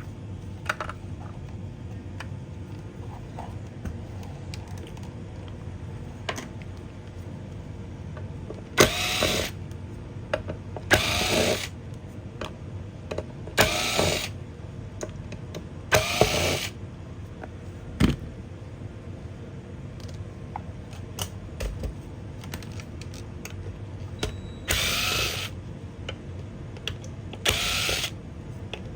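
Electric screwdriver spinning in six short runs of about a second each, driving out the screws while the Xbox Series X is taken apart, with small clicks and handling knocks between the runs over a steady low hum.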